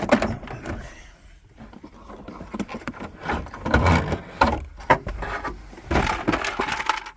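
Plastic center console being worked loose and lifted out of a car interior: irregular scraping, rubbing and knocks of plastic trim in several bursts.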